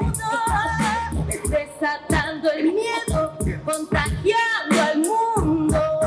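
Woman singing a wavering melodic line into a handheld microphone over a hip-hop backing beat with regular drum hits, amplified live.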